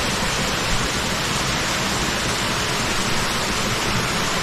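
Steady rush of water in a mountain stream, cascading over rocks.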